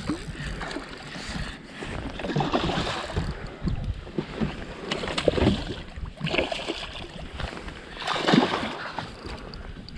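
Hooked pike thrashing at the surface beside a boat, water splashing in irregular bursts, the biggest splash about eight seconds in.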